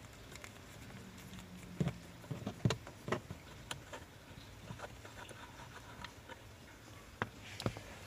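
Irregular light clicks and taps from a screwdriver and fingers working screws out of the plastic trim under the steering column, with a few sharper knocks about two, three and seven seconds in.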